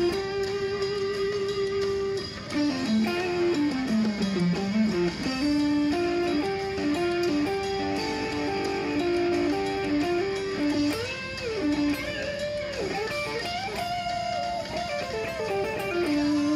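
Electric guitar playing a single-note lead melody: a descending run, then a line of held notes with string bends, ending on a long sustained note.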